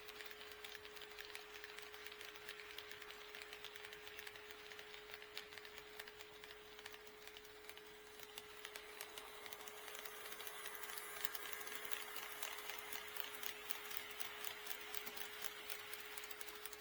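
HO scale model train running on KATO Unitrack, its wheels clicking quickly over the rail joints, the clicking growing louder from about ten seconds in as the train comes closer, over a faint steady hum.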